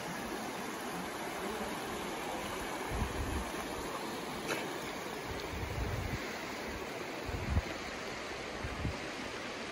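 Steady rush of flowing creek water, with a few brief low thumps about three, six and seven and a half seconds in.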